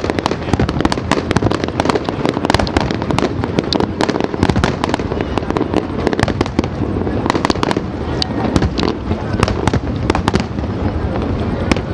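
Aerial fireworks display: a dense, continuous barrage of cracks and bangs with no let-up.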